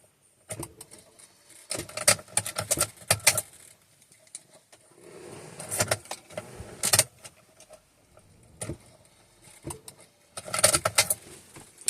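Irregular clicks and rattles in several short bursts, from small objects being handled.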